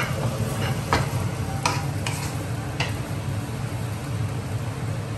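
Red-rice fried rice sizzling in a pan while it is stirred, with several sharp clicks of the wooden spatula and metal spoon striking the pan in the first three seconds, over a steady low hum.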